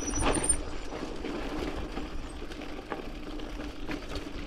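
Mountain bike coasting downhill on a rough dirt-and-gravel track: tyres crunching over stones and the bike rattling, with a few sharper knocks over bumps, about three across the stretch. A low rumble of wind on the microphone runs underneath.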